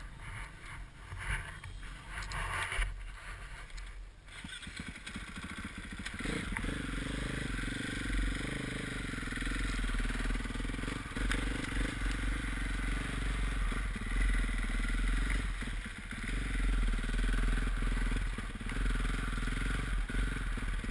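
KTM 450 XC-F's single-cylinder four-stroke engine heard from the rider's helmet: low and uneven for the first few seconds, then running steadily at low revs as the bike is ridden slowly across the grass from about five seconds in.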